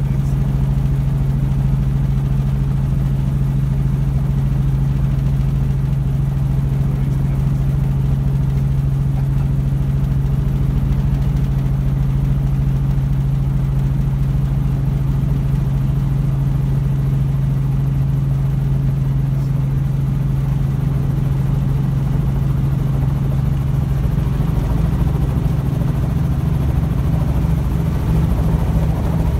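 Robinson R44 helicopter heard from inside the cabin on its approach to land: a steady loud drone of the six-cylinder Lycoming piston engine and rotors. Near the end the drone starts to pulse and gets a little louder.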